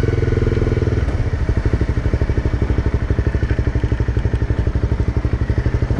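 Honda CBR300R's single-cylinder engine running with a fast, even throb, a little louder for the first second.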